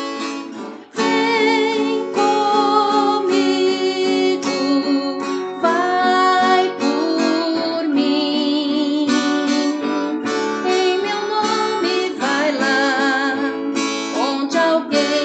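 A devotional song in Portuguese: a sung voice with vibrato, accompanied by strummed acoustic guitar.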